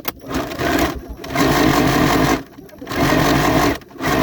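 Older-model domestic sewing machine stitching in three runs of about a second each, stopping briefly between them, as it sews shirring with elastic thread in the bobbin. A short click comes right at the start.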